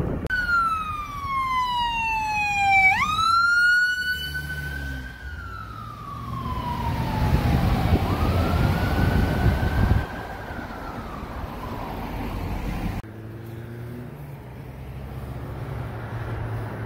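Fire apparatus electronic siren wailing, its pitch sliding slowly down and back up, with abrupt jumps where the sound cuts off suddenly. After about 13 seconds only a heavy truck engine rumbles low.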